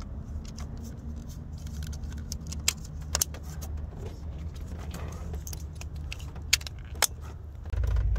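Ignition-coil electrical connectors being pushed back on by hand, with a few sharp plastic clicks and light clinks over a steady low rumble that grows louder near the end.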